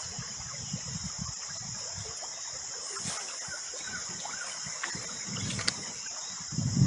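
A steady, high-pitched drone of insects, with a faint trickle of running water and low rumbling underneath.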